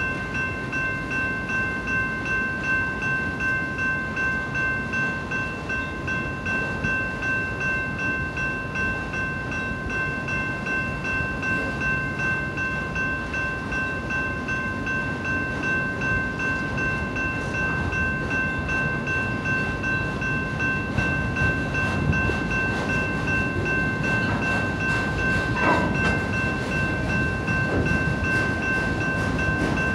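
Freight train of autorack cars rolling steadily past a grade crossing, the wheels making a continuous rumble and clatter on the rails. Over it sounds a steady, ringing high tone, the crossing bell that rings while the signals are active.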